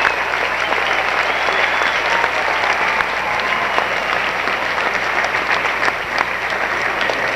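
A large theatre audience applauding steadily, with thick continuous clapping throughout.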